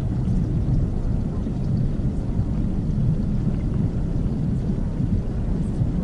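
Steady, even masking noise of the 'calm white noise' kind, deep and bass-heavy rather than hissy, unchanging throughout.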